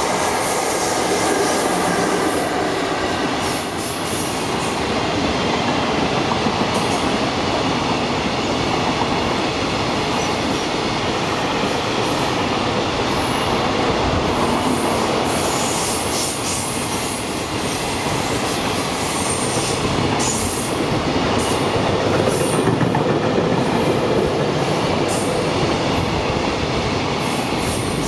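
A freight train of container wagons, headed by an EF66-100 series electric locomotive, rolls past at speed. The wheels make a steady rumble on the rails, with faint squealing tones and scattered sharp clicks. The noise starts to fall away at the very end as the last wagons go by.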